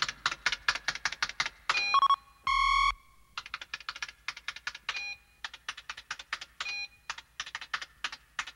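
Animated sound effect of rapid typing on a laptop computer keyboard: quick clicks, about five or six a second, many with small electronic blips. About two and a half seconds in they break for one computer beep lasting about half a second.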